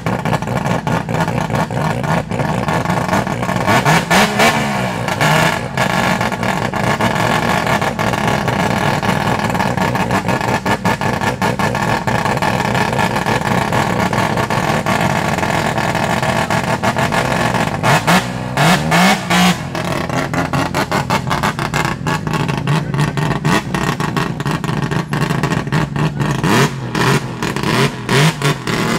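Loud modified car engines idling with a choppy, uneven beat, blipped and revved briefly a few times, about four seconds in and again around eighteen seconds in.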